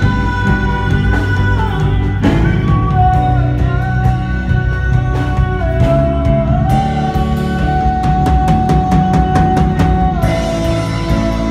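Live worship band playing a slow song on keyboard, drum kit and electric guitar, with a singer holding long notes over it. A steady run of cymbal taps comes in about halfway through.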